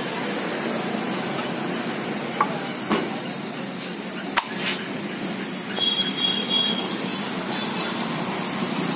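Steady roadside traffic noise, with a few sharp knocks partway through and a short high-pitched tone about six seconds in.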